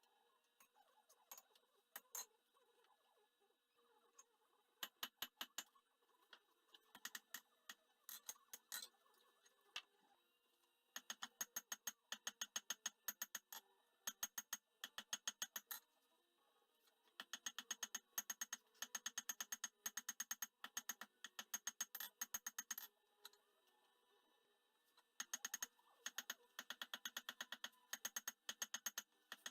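Hammer blows on an anvil in quick runs of about five strikes a second, broken by short pauses, each blow ringing. This is hand forging of a hot spring-steel pitchfork tine into a blade, on an antique anvil that the owner believes is a Trenton.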